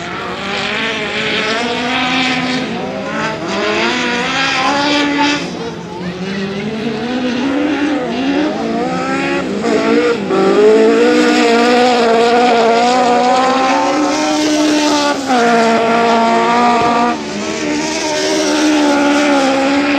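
Lowered VW Beetle autocross cars racing on dirt, their engines revving hard. The pitch climbs and then drops again and again with each gear change and lift, loudest in the second half.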